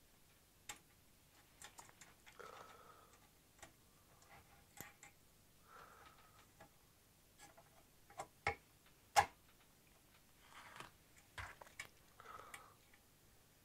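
Scattered light clicks and taps of small metal parts and hand tools being handled during kit assembly, with a few brief scrapes; the sharpest click comes a little past halfway.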